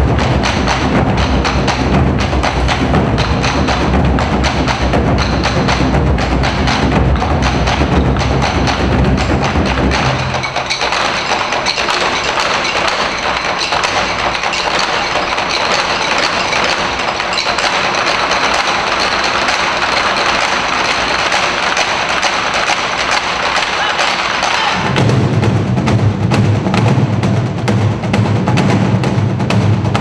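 Ensemble of Korean barrel drums (buk) struck with sticks in a fast, dense rhythm. About ten seconds in the deep drum strokes drop away, leaving lighter, sharper clicking strokes, and the deep drumming comes back about fifteen seconds later.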